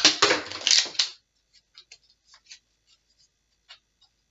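Nerf dart blaster firing with a sharp plastic pop right at the start, followed by about a second of clattering hits. Then scattered light plastic clicks of the blaster being handled.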